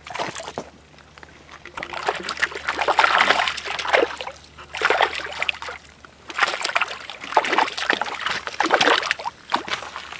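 Hooked rainbow trout thrashing at the surface of the shallows as it is reeled in to shore, water splashing and sloshing in repeated irregular bursts.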